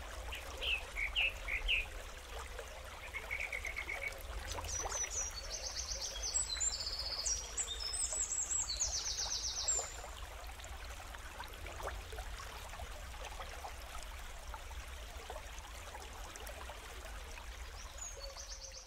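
Birds calling over a steady hiss and low rumble: a few short chirps, then a brief trill, then several high, rapid trills overlapping for about five seconds in the middle, and one more trill near the end.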